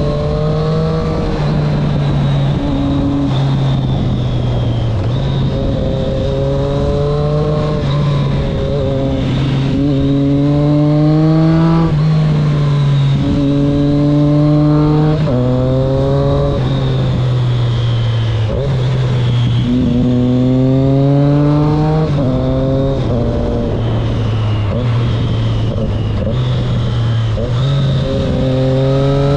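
Triumph Street Triple S 660's three-cylinder engine running through an SC Project aftermarket exhaust, heard from the rider's seat while riding. It accelerates several times, its pitch climbing in steps and dropping back at each upshift, with steadier cruising stretches between.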